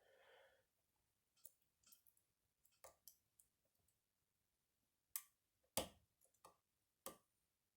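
Faint, irregular metallic clicks of a lock pick and tension wrench working the pins of a pin tumbler challenge lock, with a few sharper clicks in the second half.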